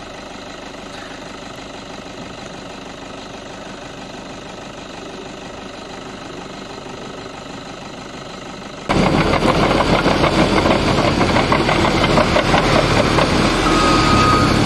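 An engine idling steadily. About nine seconds in, it gives way to the much louder diesel engine of a Caterpillar D7E bulldozer running as the dozer pushes snow.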